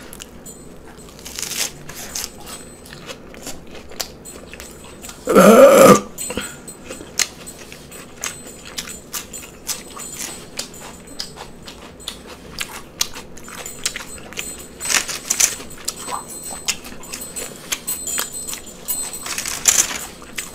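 Close-miked chewing: many small wet clicks and crunches from a mouth eating, with one short, louder throat sound about five seconds in.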